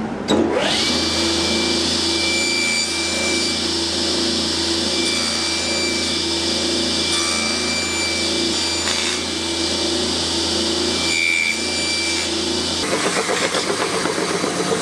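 Table saw spinning up and running with a steady whine and low motor hum while it cuts a drilled board. About 13 seconds in, the sound changes to a stationary edge belt sander grinding the board's edge.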